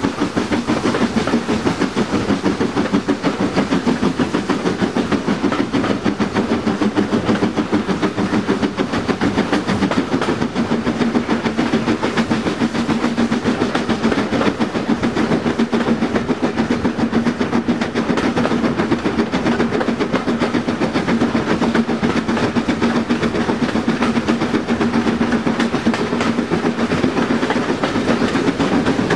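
Steam-hauled train running at speed, heard from an open carriage window close behind the locomotive: a fast, even beat of exhaust and wheels over the rails. A steady hum joins in about eleven seconds in.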